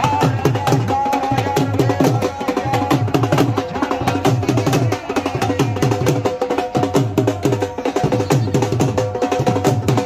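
Dhol drums, two-headed barrel drums, beaten in a fast, steady rhythm, each deep bass stroke sliding down in pitch. A steady held note sounds above the drumming.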